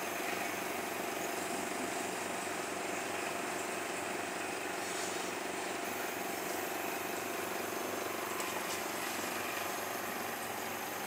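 Flame photometer running with its flame lit and the sample being aspirated: a steady hiss and hum from the instrument's air supply and burner.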